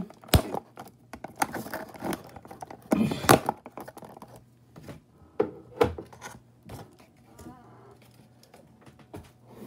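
Unpacking noises: scissors snipping the plastic ties that hold a toy dinosaur figure in its box, with clicks, scrapes and the rustle of cardboard and plastic packaging. The loudest rustle comes about three seconds in.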